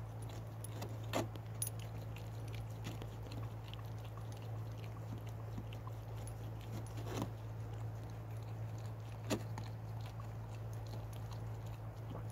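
A beagle gnawing a deep-frozen bone: scattered small clicks and scrapes of teeth on hard bone, with a few sharper cracks about a second in and again around seven and nine seconds, over a steady low hum.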